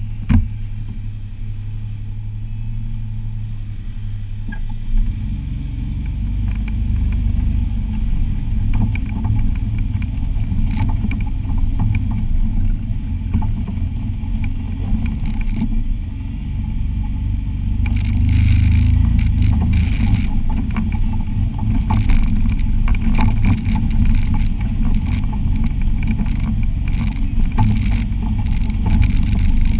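Side-by-side UTV engine running at low trail speed, a steady low rumble, with the machine rattling and knocking as it crawls over rocks and bumps. The knocks come thicker in the second half, and there is one sharp knock right at the start.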